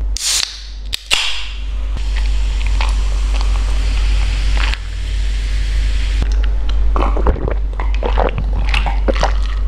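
A can of zero-calorie lime Pepsi cracked open with a sharp hiss, then the fizzing soda poured over ice into a glass jar, the hiss cutting off suddenly near five seconds in. From about seven seconds in, a run of gulps as the soda is drunk from the jar.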